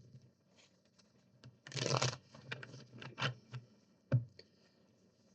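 Tarot cards being handled: scattered light clicks and taps, with a short rustling swish of cards about two seconds in.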